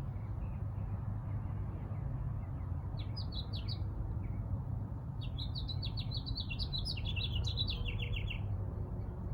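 A songbird sings: a few short chirps about three seconds in, then a longer phrase of quick high notes that ends in a fast trill, over a steady low rumble.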